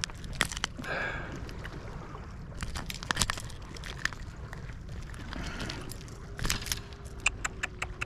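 Fishing pliers and a lure's metal hooks clicking and clinking irregularly as the hooks are worked loose from a barracuda's mouth, over a low rumble of wind and sea. A faint steady hum joins in over the last few seconds.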